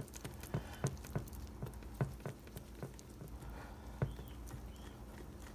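Wire whisk beating pancake batter in a bowl: faint, irregular clicks and taps as the wires strike the bowl, a few a second.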